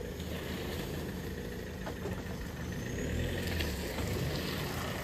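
A vehicle engine running steadily with a low drone, getting slightly louder about three seconds in.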